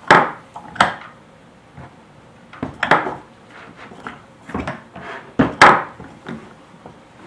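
Sjobergs Smart Vise and its wooden base parts being handled and set into place: a series of hard knocks and clatters, about six, with the loudest near the start and about five and a half seconds in.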